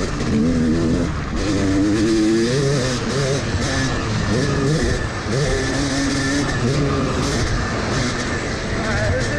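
Yamaha YZ250 two-stroke dirt bike engine revving hard, its pitch climbing and dropping several times as the throttle is worked, heard from the rider's helmet camera with a rush of wind noise.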